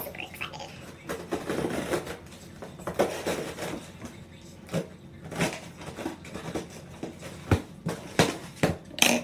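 A box being cut open with scissors and handled: irregular rustling and scraping, with several sharp clicks and knocks in the last couple of seconds.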